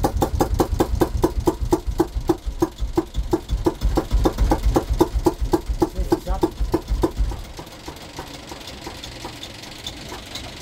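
Volvo MD1B single-cylinder diesel running with a slow, even beat that spaces out from about five to about three firings a second, then stops about seven seconds in as it is shut down by hand.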